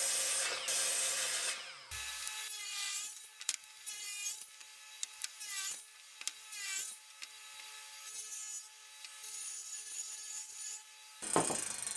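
A hand file or rasp scraping wood in repeated strokes, louder for the first two seconds and then as a run of separate shorter strokes. A faint steady hum runs underneath.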